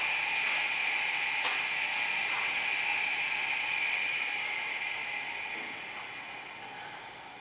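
Compressed air hissing steadily through the air line and mold of a three-station ball vulcanizing and marking press, fading away slowly in the second half, with a couple of faint clicks early on.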